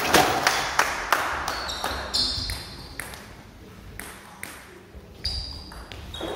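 A table tennis rally: the celluloid ball clicks back and forth off rackets and table, about two knocks a second, echoing in the sports hall. Brief high squeaks of sports shoes on the hall floor come between the knocks.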